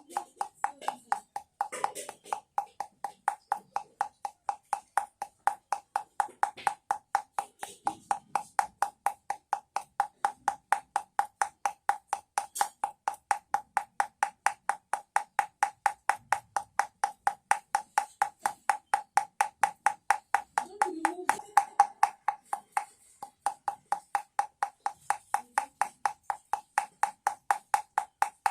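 Home-made container rattle making a baby-rattle sound: short pitched knocks at a steady, even beat of about three a second.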